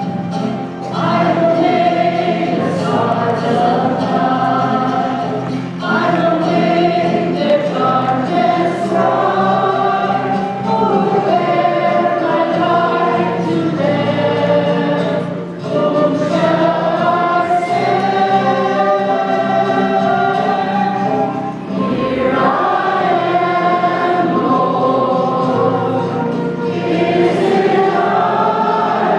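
Church choir singing a hymn in phrases, over steady sustained low accompaniment notes.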